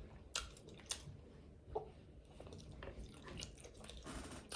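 Close-miked chewing and biting of fried chicken wings: faint wet mouth sounds and smacking, with a few short crisp clicks, the clearest near the start.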